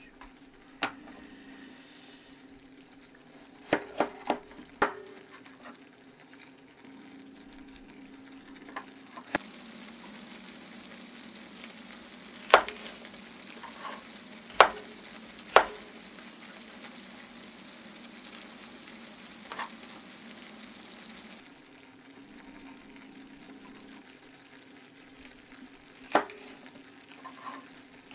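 Bacon and mushrooms sizzling in oil in a small cast-iron skillet over a gas burner, a steady frying hiss, louder through the middle stretch. Over it come a dozen or so sharp, irregular knocks of a knife cutting a bell pepper on a cutting board.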